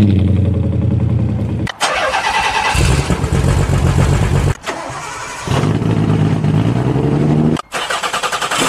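Car engines and exhausts running loudly, in short clips spliced together. The sound changes abruptly to a different engine about every two to three seconds.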